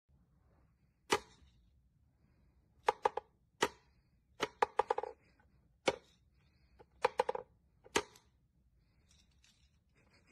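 Wooden whack-a-mole cat toy clacking as pegs are pushed up from below and the cat bats the pop-up figures down: sharp hollow wooden knocks, some single and some in quick runs of two to four, every second or so.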